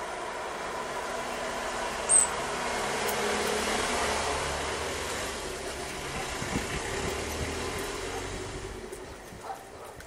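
A motor vehicle passing along the street, its noise swelling to a peak about four seconds in and then fading away. A single short, high bird chirp about two seconds in.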